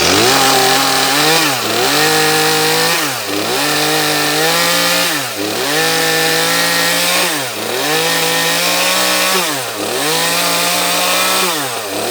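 Ported Echo CS-310 two-stroke chainsaw revved at high speed in the air, the revs dropping briefly and climbing back about every two seconds. The saw is being run to get bar oil onto the freshly sharpened chain before a cut.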